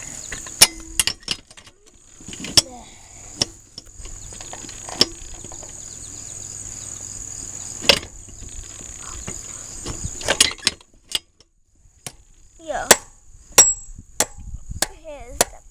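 Irregular sharp knocks and taps of metal parts being handled and worked on a bicycle frame. A steady high-pitched insect trill runs underneath and drops out for a couple of seconds past the middle.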